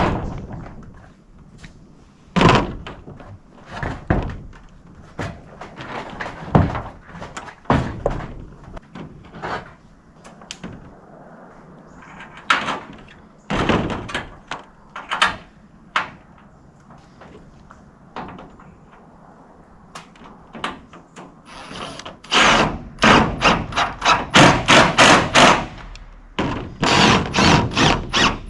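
Knocks and bangs of work on roof panels: scattered single blows for the first half, then a quick run of strikes, about three a second, over the last six seconds.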